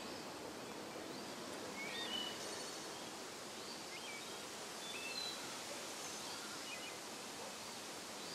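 Woodland ambience: a steady background hiss with small birds chirping and whistling here and there, short rising and falling notes scattered throughout.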